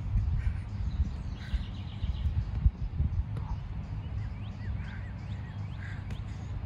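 Wind buffeting the microphone in an uneven low rumble, with small birds chirping now and then and a single short thump about two and a half seconds in.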